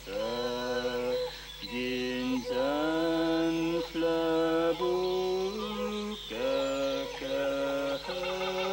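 Chanting in long held sung notes, each lasting about a second and sliding up into pitch at its start, one after another with short breaks.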